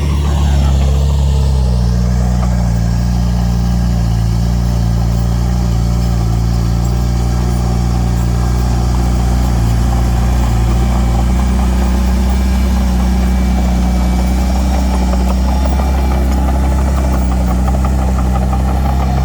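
Heavy-equipment diesel engine running steadily at a low, even speed, with a deep, constant drone; the pitch eases down slightly about a second in.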